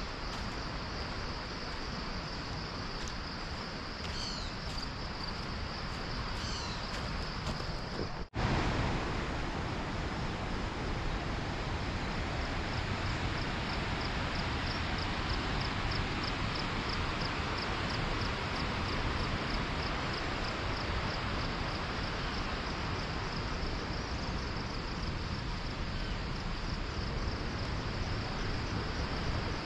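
Steady rush of flowing stream or waterfall water, with a high insect call pulsing regularly above it and a couple of bird chirps before the sound cuts out for an instant about eight seconds in.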